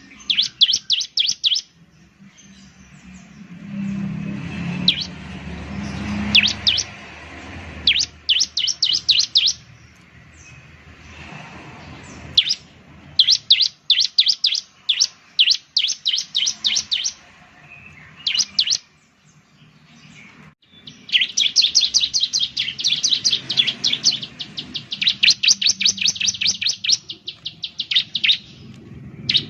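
Bar-winged prinia (ciblek) singing: bursts of rapid, evenly spaced high chirps, each burst lasting one to two seconds, repeated with short pauses. A low rumble sits under the song for a few seconds in the first third.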